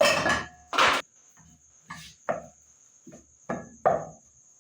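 A series of about eight sharp knocks and clinks of kitchenware being handled and set down, the first two loudest. A steady high insect trill, typical of crickets, runs underneath.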